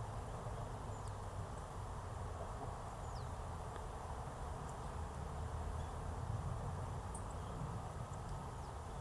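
Steady outdoor background rumble, with a few faint, brief high-pitched bird notes, one falling in pitch about three seconds in.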